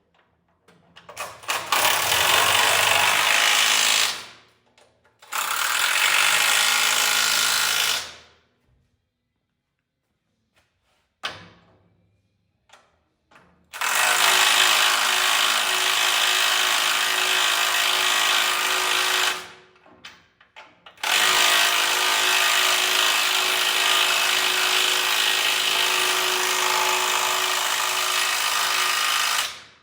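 Handheld power tool run in about five bursts with short pauses between them; the last two runs go for several seconds each, and a short blip comes near the middle.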